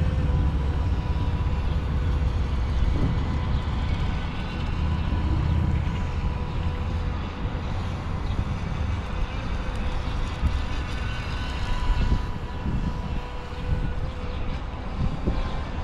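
Alpharev R308 RC speedboat's electric motor running at speed on the water, a steady whine over a low rumble.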